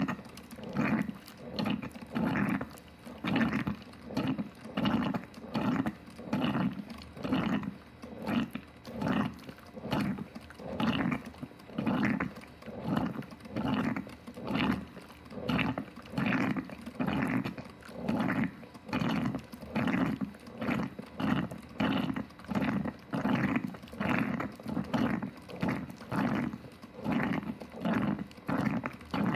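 Electric coffee percolator perking: rhythmic gurgling spurts of water, a little more than one a second.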